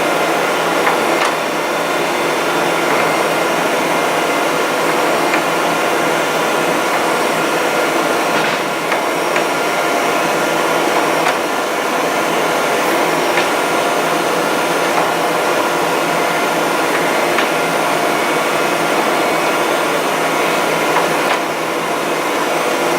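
Okamoto ACC 1224 ST hydraulic surface grinder running: a steady machine whir from its hydraulic system and wheel spindle, with a few faint clicks.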